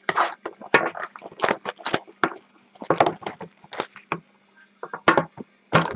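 Cardboard trading card boxes being handled and opened by hand: an irregular run of short taps, knocks and crinkles of cardboard and wrapping.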